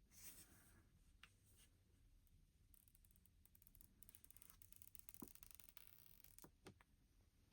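Faint handling sounds while unboxing a phone: soft rustling and rubbing of packaging, with a few light taps and clicks.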